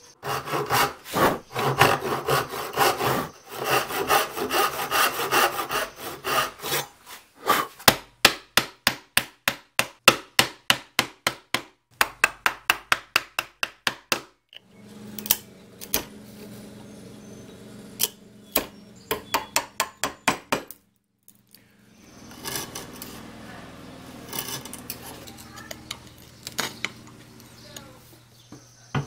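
Hand saw cutting wood in quick strokes for the first several seconds. Then a mallet strikes a chisel in steady blows, about two a second, chopping out dovetail waste, with bouts of scraping between strikes later on.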